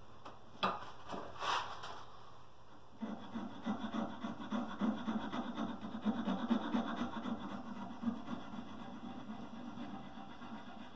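A hand tool scraping a carved wooden piece held in a bench vise. A few light knocks come in the first two seconds, then about three seconds in a run of rapid scraping strokes on the wood starts and gradually eases toward the end.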